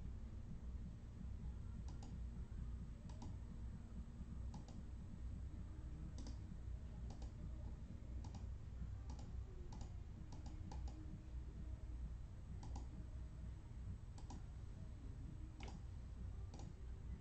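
Scattered single clicks at an uneven pace, roughly one a second, over a low steady hum.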